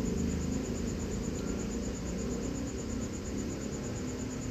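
A cricket's steady, high-pitched pulsing trill over a low background hum.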